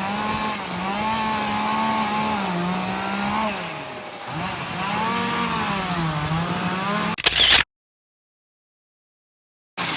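Chainsaw running while carving wood, its engine pitch repeatedly rising and falling as the saw is worked into the log. The sound cuts off abruptly about seven seconds in, and after about two seconds of silence the saw is heard again just before the end.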